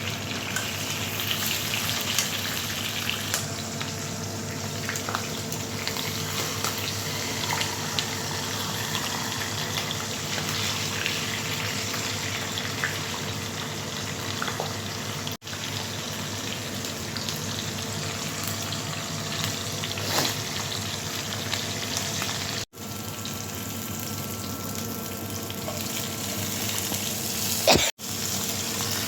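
Food frying in hot oil in a pan, sizzling steadily, broken by three very short gaps.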